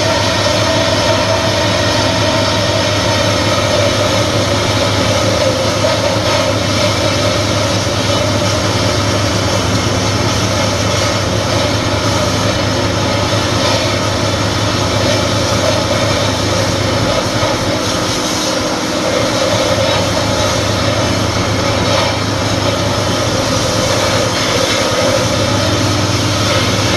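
Belt sander running at full speed with a steel disc pressed hard into the belt, a steady grinding noise over the motor's hum as it cuts metal off the disc.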